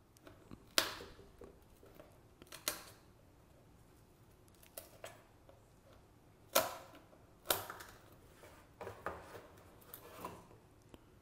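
Die-cut card pieces of a 3D puzzle being pushed out of their sheet with a small plastic punch tool: irregular sharp snaps and crackles every second or so, the loudest a little past halfway.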